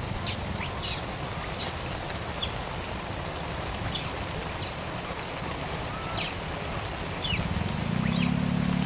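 Outdoor ambience: short, very high, falling chirps come about once a second over a steady low rumble. The rumble grows louder with a low hum in the last second or so.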